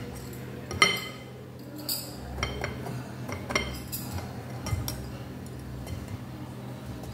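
Metal flour sieve and wire whisk clinking and scraping against a glass mixing bowl while flour is sifted. A sharp clink comes about a second in, followed by several lighter taps and scrapes.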